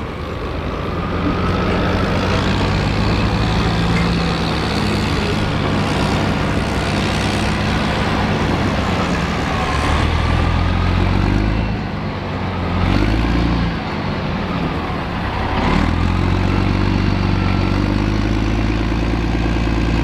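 M113 tracked armoured personnel carrier driving, its diesel engine running steadily under load. The engine note shifts about ten seconds in, dips briefly a couple of seconds later and shifts again near sixteen seconds.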